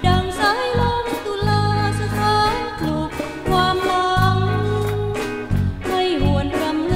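A song: singing over instrumental accompaniment with bass notes and a regular beat.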